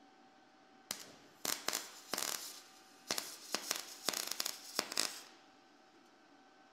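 MIG welding arc on .023 wire crackling and sputtering in short irregular bursts, starting and stopping from about a second in until about five seconds. The voltage is too high for the wire feed on thin 22-gauge sheet, so the wire burns back and the arc blows holes instead of laying a steady bead.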